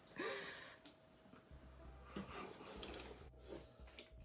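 Faint handling sounds of hands feeling a small plastic hand-crank pencil sharpener on a cardboard box floor: light clicks and knocks with a low rumble, after a short breath out in the first second.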